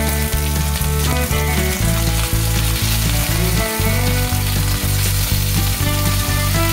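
Marinated beef slices sizzling in hot oil in a wok as they are turned and stirred with a silicone spatula, with background music underneath.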